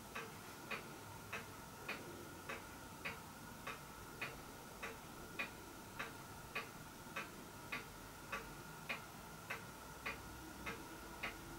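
Faint, even ticking, a little under two ticks a second, like a clock ticking, over a faint steady high hum.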